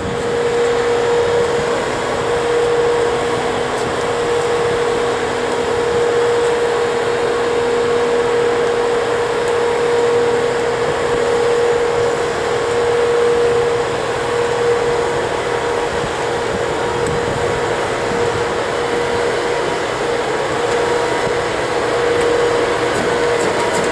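Class 92 electric locomotive standing with its cooling fans running: a steady blowing drone with a constant mid-pitched whine on top.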